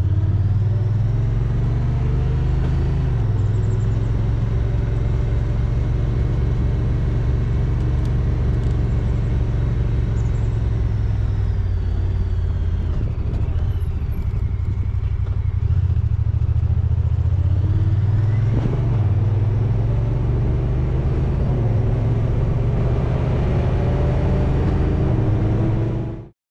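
Honda Pioneer side-by-side's engine running with a steady low drone while driving, its pitch shifting a little now and then. The sound cuts off abruptly near the end.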